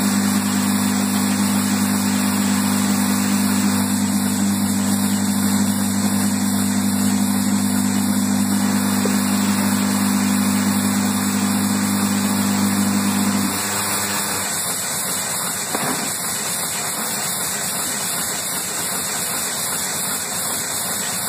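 Production-line machinery running with a steady mechanical hum over a wide hiss. About two-thirds of the way through, the deeper part of the hum cuts out and the sound gets slightly quieter, while the hiss carries on.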